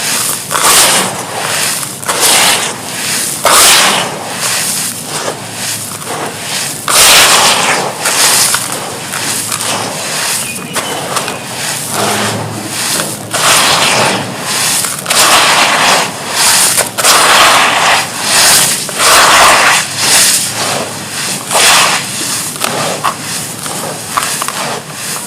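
Crumbly charcoal chunks crunching and breaking up as they are crumbled into a tub of water: a run of irregular, loud, gritty crunching bursts, roughly one a second.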